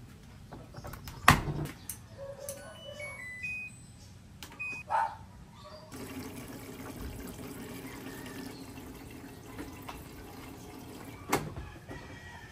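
A few knocks and short clinks, then water running steadily, as from a tap into a sink.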